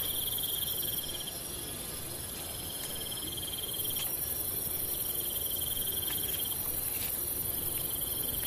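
Night-time crickets and other insects chirring steadily: a continuous high trill, with a second, lower trill that drops out and comes back a few times.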